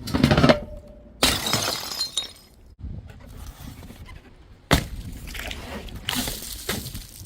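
Glass bottles smashing: four separate sudden crashes, each trailing off as the glass breaks apart.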